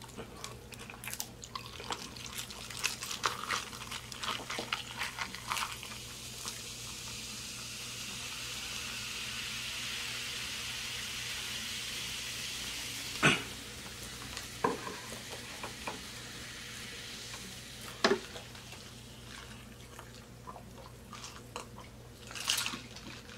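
Handling clicks and crackles, then a carbonated drink poured from a plastic bottle into a glass: a steady fizzing hiss for about six seconds, ending with a sharp knock as the pour stops. A few more knocks follow.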